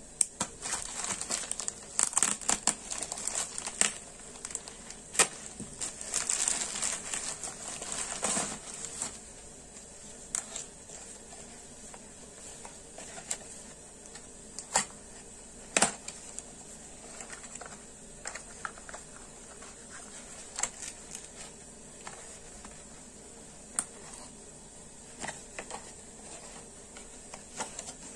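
Plastic mailer bag crinkling and tearing as it is cut and pulled open with a small folding knife. Then occasional taps and rustles as a cardboard box is handled and opened.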